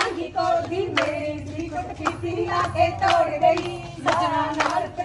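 A group of women singing a Punjabi folk song together, with sharp hand claps roughly once a second keeping the beat for giddha dancing.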